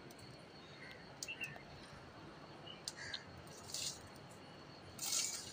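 Quiet outdoor ambience: a few short bird chirps, with two brief rustling hisses, one past the middle and one near the end.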